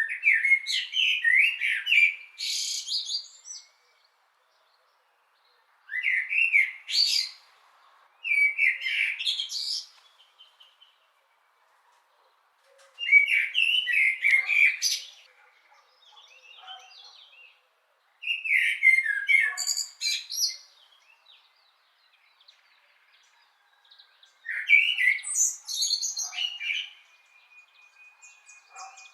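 Blackbird singing: about six short warbled phrases, each a few lower whistled notes running into thinner, higher notes, with pauses of a few seconds between them.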